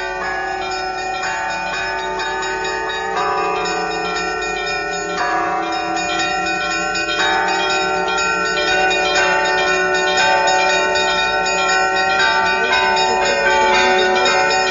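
Bronze monastery church bells being rung, a new strike every second or two with each one ringing on under the next, growing slowly louder.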